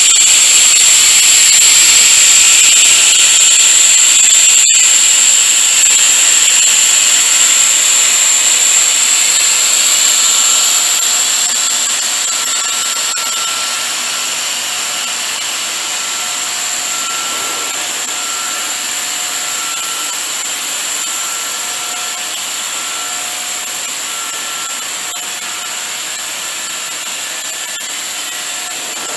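HDPE pipe extrusion line running: a steady high-pitched whine over a constant hiss from the extruder and its tank machinery, with faint intermittent tones beneath. It grows somewhat quieter after about ten seconds, with a single click a few seconds in.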